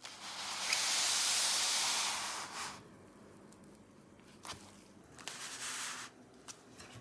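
Handling noise from the open aluminium laptop being slid and turned around on a foam pad: a loud scraping hiss for the first few seconds, a few light clicks about four and a half seconds in, and a second, shorter scrape shortly after.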